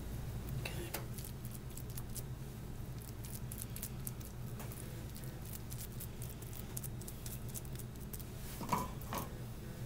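Hands pressing sticky rice pilaf stuffing into the pocket of a raw chicken breast: faint, irregular squishing and patting with many small clicks, over a steady low hum.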